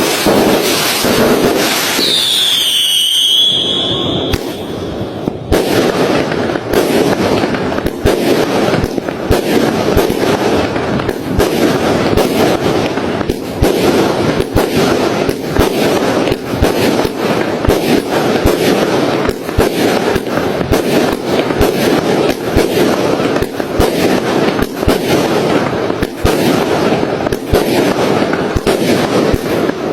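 Fireworks going off in rapid succession: many sharp bangs and crackles close together, with a whistling firework sounding for about two seconds near the start.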